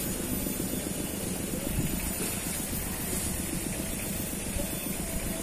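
Wind buffeting the microphone: a steady, irregular low rumble with a constant high hiss over it.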